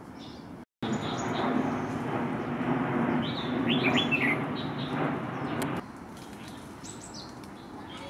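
Small songbird chirping: a short run of quick chirps, several falling in pitch, in the middle, over a steady background hiss. The hiss starts abruptly after a brief dropout near the start and stops abruptly about three-quarters through, leaving fainter high chirps.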